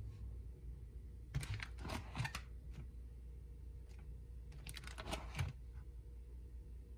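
Plastic trading-card sleeve pages in a ring binder crinkling and clicking as they are turned, twice: once about a second and a half in and again about five seconds in.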